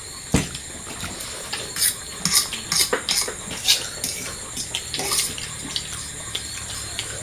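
Cutlery clinking and scraping against plates during a meal, in irregular clicks, with a dull knock just after the start.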